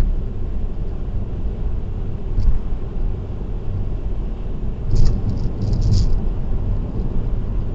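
Car driving on an expressway: a steady low road and engine rumble, with a short rattle about two seconds in and a cluster of brief rattling bursts around five to six seconds in.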